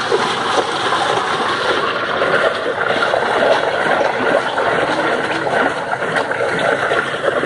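A steel ladle churning ice chunks through a green syrupy drink in a large steel pot, with continuous sloshing and splashing of liquid and ice.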